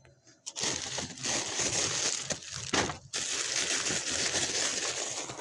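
Crinkling and crushing of packaging being handled during snack prep. It starts about half a second in, breaks off briefly about three seconds in, then resumes.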